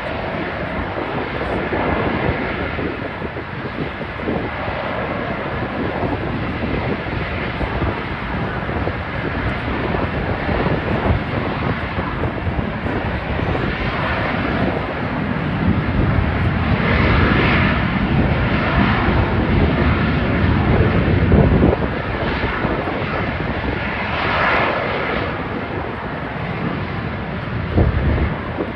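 Aircraft engine noise from a military airplane in flight: a loud, continuous rush that swells and eases several times, loudest about two-thirds of the way through.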